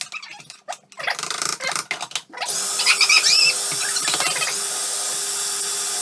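Food processor: clicks and rattles as the bowl's lid and pusher are fitted, then the motor starts about two and a half seconds in and runs steadily, blending the soaked-cashew cheesecake filling.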